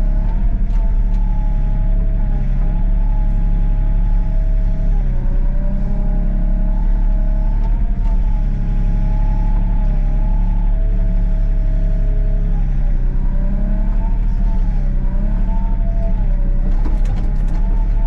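Excavator's diesel engine running steadily under a wavering hydraulic whine whose pitch dips and rises as the boom and bucket are worked while digging.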